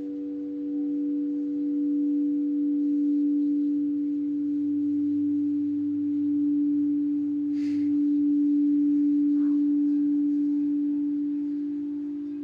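Crystal singing bowls sounding together as several steady, pure tones, the lowest the strongest. The ring swells and eases gently in loudness.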